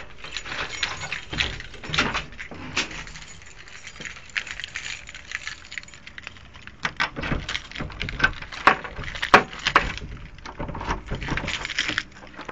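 Keys jangling and clicking in the locks of a metal mesh screen door and a wooden front door as they are unlocked and opened: a string of irregular metallic clicks and knocks, thickest in the second half.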